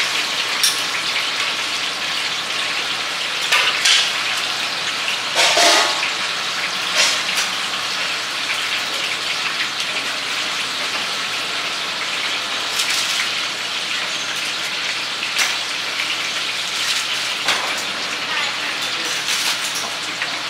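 Hot oil sizzling steadily in a large wok as oyster fritters and other battered foods deep-fry, with a few short clinks and knocks of metal ladles and bowls.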